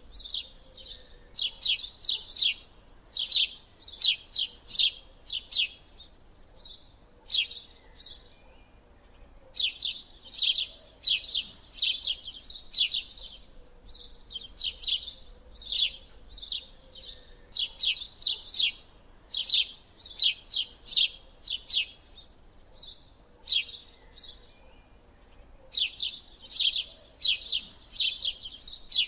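Bird chirping in quick runs of short, sharp, high chirps, each run of several notes followed by a brief pause, repeating throughout.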